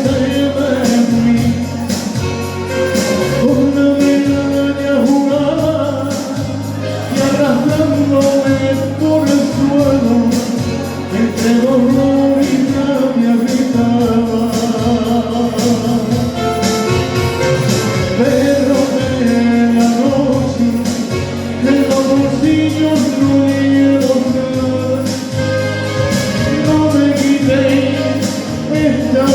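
Live band music with a steady beat under a sustained, gliding melodic line.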